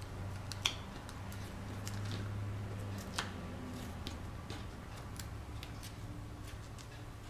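Hands handling cardstock and small paper cutouts: soft rubbing and pressing of paper, with scattered light clicks, the sharpest about a second in and again around three seconds in, over a steady low hum.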